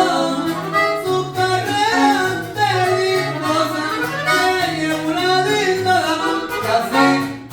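Corrido music with accordion playing the melody over a steady, walking bass line.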